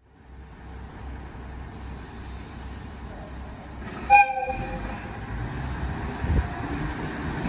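Small shunting locomotive in a freight yard: a steady low rumble of the locomotive running, broken by one short horn toot about four seconds in and a low knock about six seconds in.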